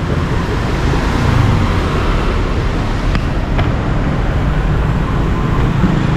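Steady street traffic noise with motor vehicles passing, and two short light clinks about three seconds in, half a second apart.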